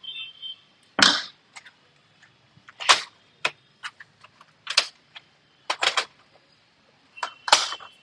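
Laptop's plastic bottom cover being pressed back into place: a series of sharp clicks and snaps, about one every second or two, with lighter ticks and handling noise between them.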